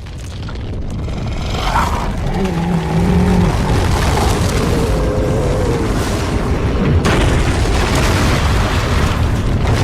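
Giant-monster film sound effect: a deep rumble that swells up from silence, with a wavering pitched cry over it from about two to five seconds in, then a steady loud rumble.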